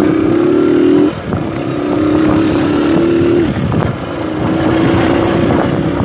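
Small motorcycle engine running under way, the throttle eased off briefly about a second in and again about three and a half seconds in, then opened again.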